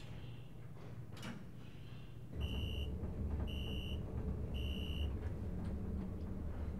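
Elevator car setting off with a low, steady rumble that starts about two seconds in. Over it come three short electronic beeps, about a second apart.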